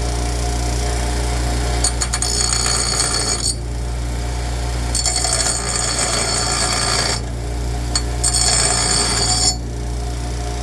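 A power grinder shaping a curved notch in a metal piece, in three passes of one to two seconds each with short lifts between them. A steady low hum runs underneath.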